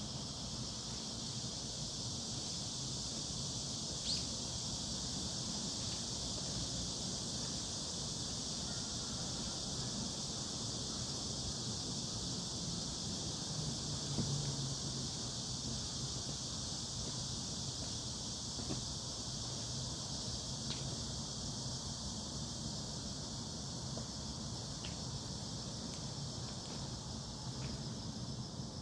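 Steady chorus of insects in a forest, a continuous high-pitched buzzing that doesn't let up. A few faint ticks and a brief low rumble about halfway through.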